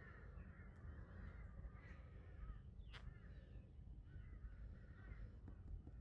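Crows cawing faintly in repeated calls, with a single sharp click about three seconds in.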